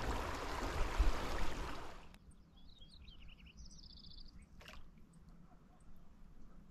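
Small mountain stream running close by, a steady rush that cuts off about two seconds in. After that it is quiet except for a few small bird chirps and a short rapid trill.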